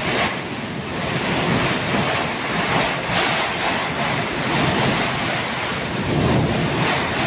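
Typhoon-force wind and heavy rain: a loud, steady rushing that swells and eases in gusts, with wind buffeting the microphone.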